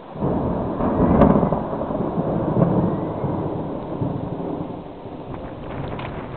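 A thunderclap breaks suddenly just after the start, loudest about a second in, then rolls on as a long rumble that slowly fades. Heavy rain hisses steadily underneath.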